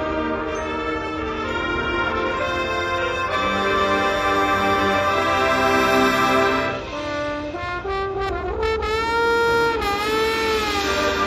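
High school marching band playing, its brass section holding loud sustained chords; the sound drops back briefly about seven seconds in, then returns with a line that bends up and down in pitch.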